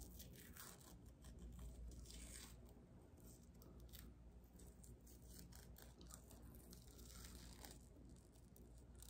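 Faint, irregular crackling and tearing of a dried peel-off face mask being peeled off the skin by hand.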